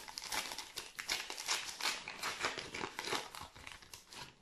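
A foil trading-card pack being torn open and crinkled by hand: dense, irregular crackling that dies away near the end.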